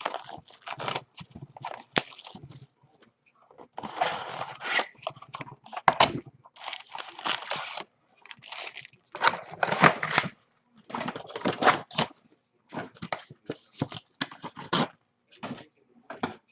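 Trading-card packaging being ripped open by hand: wrappers crinkling and tearing in short, irregular bursts with brief pauses between them.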